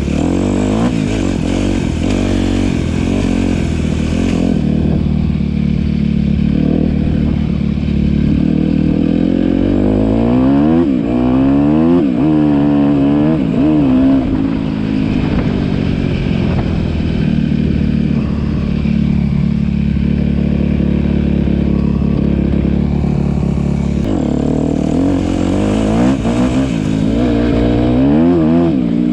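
Yamaha WR250R's single-cylinder four-stroke engine with an Akrapovic exhaust, running at a steady idle. It is revved up and down in quick blips starting about ten seconds in, settles back to idle, and is revved again in a few blips near the end.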